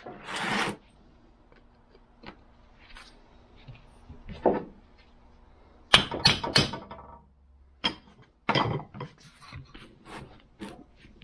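Hand tools knocking and scraping against a cast-iron Wilton bullet vise as a screwdriver is set to the jaw-plate screws to get the jaws off. A quick run of sharp knocks about six seconds in is the loudest part, with more scattered knocks and scrapes after it.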